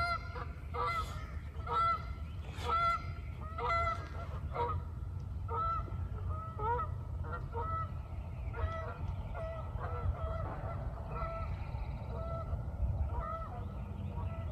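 A flock of Canada geese honking in flight, many calls overlapping, loudest in the first few seconds and going on more faintly after.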